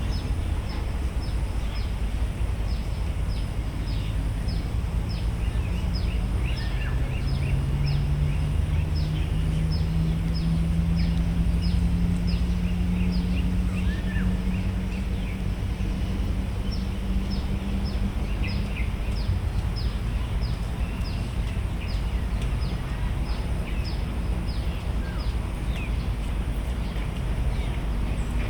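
Park ambience by a pond: short high chirps repeat about twice a second over a steady low rumble of distant traffic. In the middle a low engine drone swells and slowly rises in pitch, then fades.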